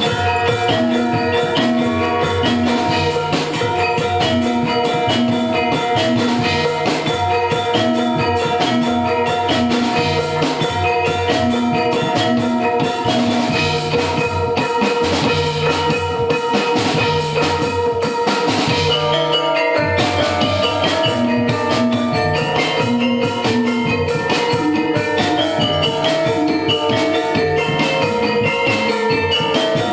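Dance accompaniment music: ringing mallet-struck pitched percussion over a steady drum rhythm, with a short break about two-thirds of the way through before the pattern resumes.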